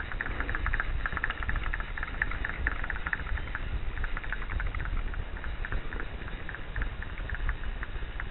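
Fly reel's click-pawl ratchet ticking rapidly and unevenly as line comes on and off the spool, over a low rumble of wind on the microphone.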